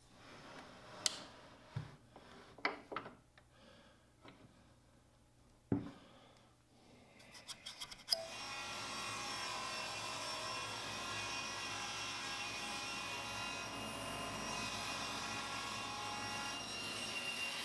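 A few light knocks and clicks from handling wood, then a table saw starts a little before halfway and runs with a steady, even whine while cutting plywood for a drawer bottom.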